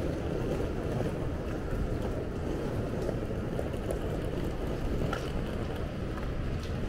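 Steady low rumble of busy city street ambience, with a few faint clicks about five seconds in and near the end.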